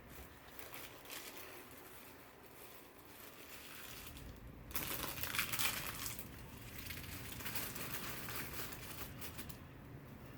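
Plastic packaging rustling as squishy toys are handled and sorted out of a pile, with a louder stretch of handling about five seconds in.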